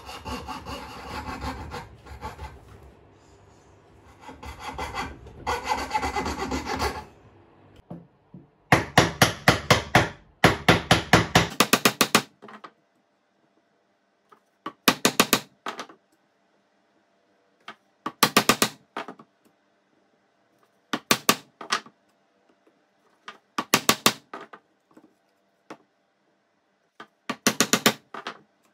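Hand saw cutting wood. It starts with several seconds of long rasping strokes, then a fast run of short strokes, then brief bursts of a few quick strokes about every three seconds with dead silence between.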